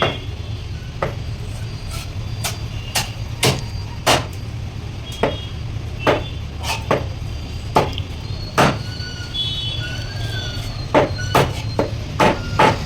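A blade chopping through rohu fish onto a cutting block: about twenty sharp, irregular strikes, with a pause of about two seconds in the middle and a quicker run of blows near the end. A steady low rumble runs underneath.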